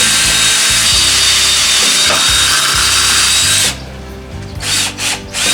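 Power drill boring a guide hole through timber, running steadily with a faint high whine for nearly four seconds, then stopping, followed by a few short bursts of the drill near the end.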